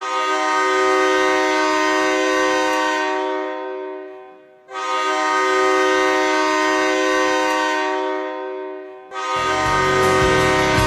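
Hockey goal horn sounding two long blasts of about four seconds each, each a loud steady chord that trails off at the end. Near the end, music with a heavy bass beat starts.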